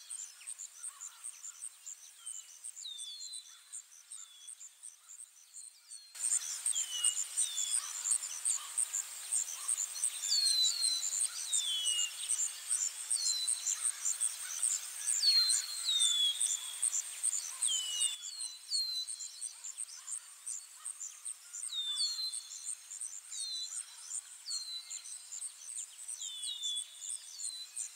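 Nature ambience of insects trilling in a fast, steady pulsing chorus, with repeated short falling bird chirps over it. The ambience swells louder for a stretch in the middle, then drops back.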